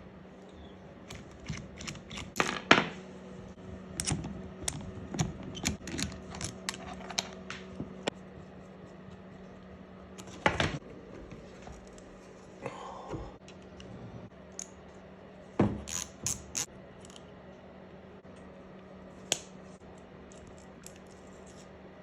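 Tools and small metal parts clicking, tapping and clinking during hands-on disassembly of a RockShox Reverb dropper seatpost: a quick run of sharp clicks in the first eight seconds, then a few scattered knocks, over a faint steady hum.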